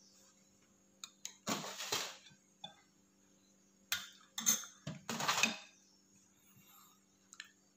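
A metal spoon clinking and scraping against a ceramic plate and a small sauce bowl as food is scooped: a few sharp clicks and several short scrapes in the first five and a half seconds, over a faint steady hum.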